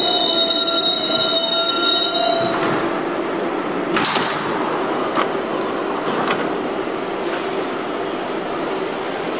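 R142A subway train's steel wheels squealing on the tight City Hall loop curve, with several steady high tones that stop about two and a half seconds in. The car then rolls on with a steady rumble and a few sharp clicks.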